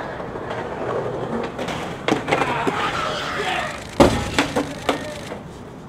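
Skateboard wheels rolling over a concrete sidewalk with a few clicks. About four seconds in, a loud clack as a skateboard hits the concrete, followed by a few smaller clatters.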